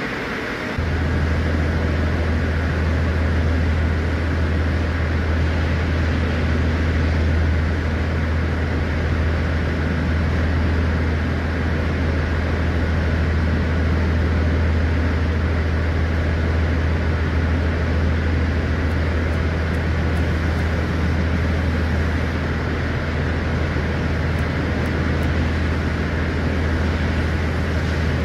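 A steady low machine drone over a hiss, starting suddenly about a second in and holding unchanged.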